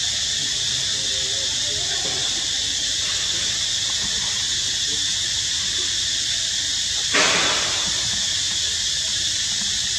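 Steady high-pitched insect drone of a tropical forest, like a cicada chorus, with faint wavering lower sounds beneath it. About seven seconds in, a short, louder rustling burst stands out.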